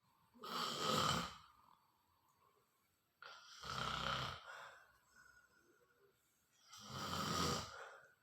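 Snoring: three loud snores about three seconds apart, each lasting about a second.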